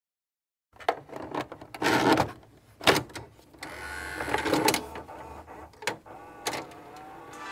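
Video tape machine sound effect: a run of mechanical clunks and clicks, with a whirring in the middle as the tape rewinds, then a low steady hum under a few last clicks.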